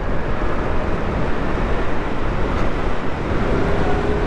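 Wind rushing over the rider's microphone, with tyre and road noise, as a Zero FX E electric motorcycle picks up speed; the electric drive itself makes almost no sound, so the steady rush of air and road fills everything.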